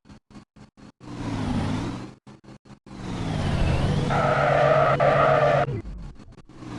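Vehicle pass-by sounds with short clicks between them: one brief swell, then a longer one that ends in a tyre-squeal-like screech and cuts off suddenly.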